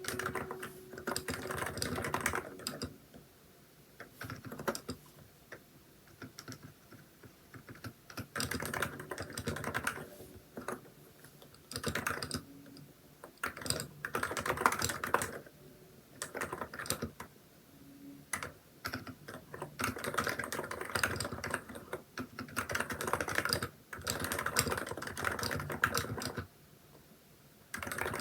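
Typing on a Hansung electrostatic capacitive keyboard with XDA keycaps: bursts of rapid keystrokes broken by short pauses.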